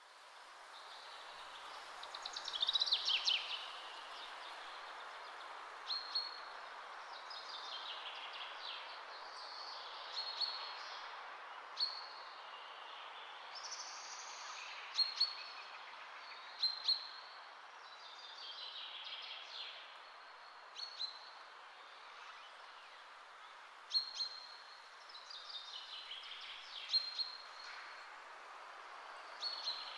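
Birds chirping and singing over a steady hiss that fades in at the start: short high chirps every few seconds, with falling trills between them.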